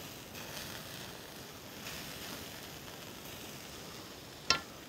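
Faint steady sizzling hiss of marinated chicken on a vertical shawarma spit roasting over hot charcoal, with one sharp click about four and a half seconds in.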